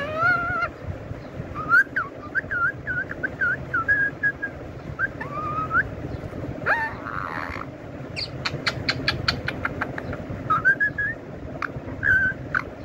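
Indian ringneck parakeet making soft whistles and chirps: short warbling notes that rise and fall, in runs, with a quick series of sharp clicks past the middle.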